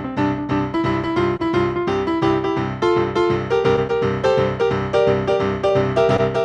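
Piano playing a postlude: steady repeated chords at about four a second, with the melody climbing gradually.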